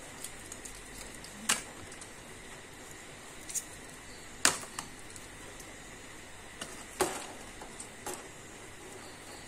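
Wire harnesses with plastic plug connectors being handled, giving about five scattered sharp clicks and taps, the loudest about four and a half and seven seconds in, over a faint steady hiss.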